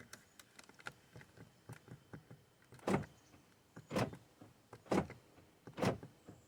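Small plastic clicks as the new lock and unlock buttons are pushed into the door switch panel, then the car's central door locks clunking four times, about once a second, as the buttons are pressed to lock and unlock.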